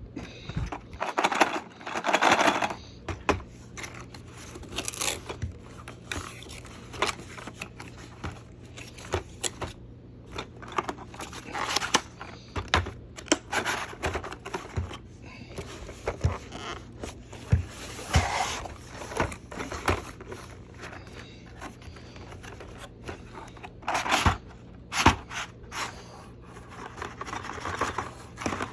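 Toy packaging being handled and opened by hand to free a toy train: irregular scraping and rustling of plastic and cardboard with many sharp clicks.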